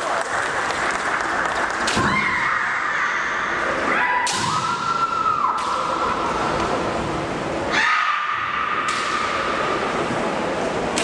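Women kendoka shouting kiai: long, high, held cries, one after another. Several sharp cracks of bamboo shinai strikes and stamping feet on the wooden floor come through between them.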